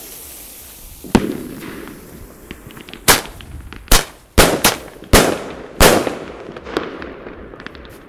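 Single-shot firework tubes firing: a deeper thump about a second in, then six sharp, loud bangs between about three and six seconds in, each trailing off, followed by a few smaller cracks.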